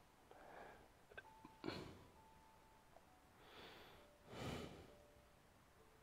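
Near silence: a man's faint breaths or sniffs near the microphone, the loudest about four and a half seconds in, with a couple of tiny clicks.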